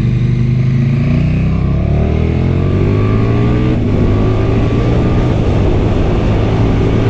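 KTM 1290 Super Duke R's V-twin on its stock exhaust accelerating hard. The engine note climbs in pitch for a few seconds, breaks briefly and drops a little near the middle as it shifts up, then pulls on steadily.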